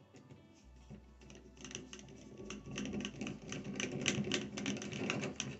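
Rapid, irregular clicking and rattling, growing louder from about a second and a half in, over a faint low hum.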